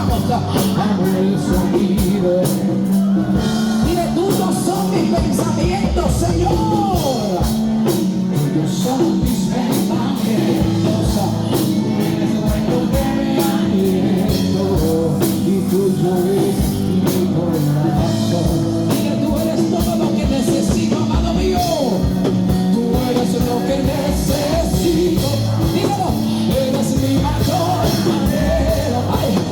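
Live band playing a Christian worship song, with a steady drum beat under a full band sound and a voice singing over it at times.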